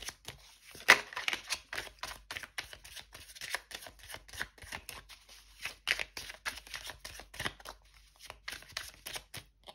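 A tarot deck being shuffled by hand, overhand: a quick, irregular run of card slaps and flicks, several a second, with one sharper snap about a second in.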